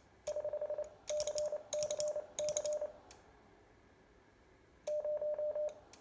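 Radio transceiver's Morse code (CW) sidetone, a steady beep of about 600 Hz keyed in quick strings of dots, with rapid clicking in each burst: a carrier being keyed on and off to drive the wattmeter. Several strings come in the first three seconds, then a pause, then another string near the end.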